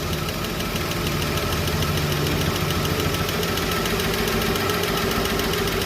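Chevrolet 235 Blue Flame straight-six idling with the valve cover off, its rocker arms and valvetrain ticking rapidly and evenly while a valve's lash is adjusted on the running engine to cure a lifter tick.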